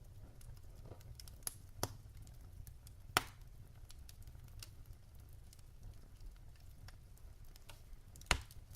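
Wood fire crackling: sharp, scattered pops over a low steady rumble, the loudest pop about three seconds in and another near the end.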